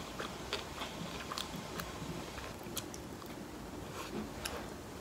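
Eating sounds: chewing, with small irregular clicks of wooden chopsticks, about a dozen over a few seconds.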